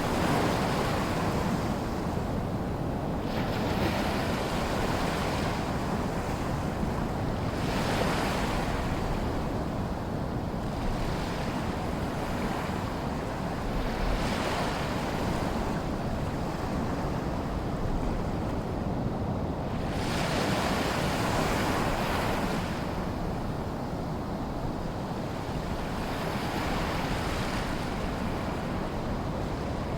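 Small sea waves lapping and washing ashore in a lagoon, a steady rush of water that swells and fades as each wave breaks, every few seconds.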